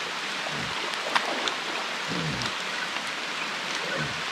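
Heavy rain falling steadily, with scattered sharper drop hits. Three short low sounds slide downward in pitch about half a second, two seconds and four seconds in.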